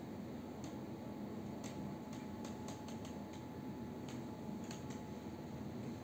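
Quiet indoor room noise with a low hum and a faint steady tone, broken by a dozen or so light, irregular clicks.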